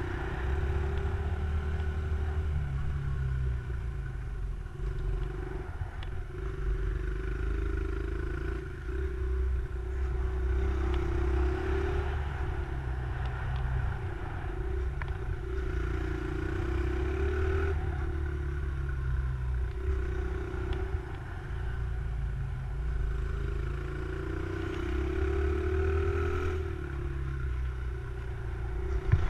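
Small motorcycle engine heard from a helmet-mounted camera, its revs rising and falling over and over as it accelerates out of and slows into the circuit's tight corners, over a steady low rumble.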